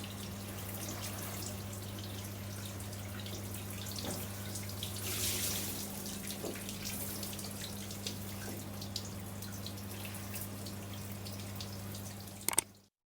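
Water dripping and spattering off a Christmas tree being washed in a shower: many small, irregular drips over a steady low hum, a little louder about five seconds in. It cuts off to silence just before the end.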